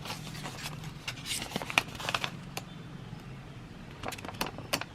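Parchment paper being handled: rustling and crinkling, with a run of sharp clicks about four seconds in.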